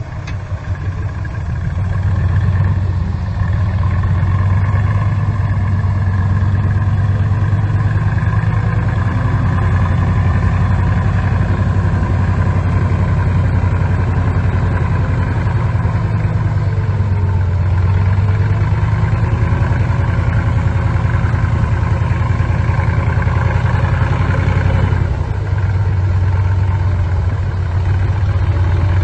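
Bulldozer's diesel engine running steadily with a deep, low drone, briefly quieter right at the start.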